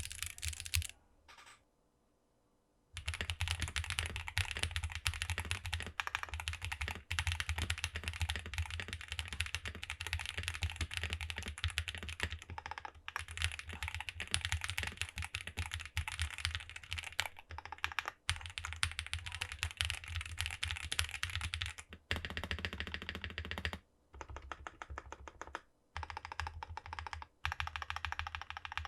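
Fast, continuous typing on a Qwertykeys QK75 mechanical keyboard with SWK Neon switches and GMK Serika keycaps. A short gap comes about a second in. After it the board is in its PC-plate build with bottom foam, plate foam and PE sheet. The typing pauses briefly twice near the end.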